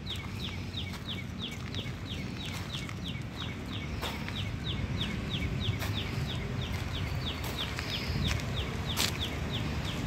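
A bird repeating a short, high chirp that falls in pitch, about three times a second without a break, over a steady low rumble, with a few sharp clicks.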